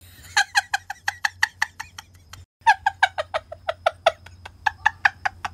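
A woman laughing hard behind her hand, in quick cackling bursts about five a second, in two runs with a short break about two and a half seconds in.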